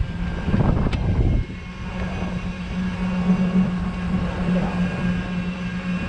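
Golf cart driving along a paved road, a steady hum from its drive running throughout. Wind rumbles on the cart-mounted microphone and drops away sharply about a second and a half in.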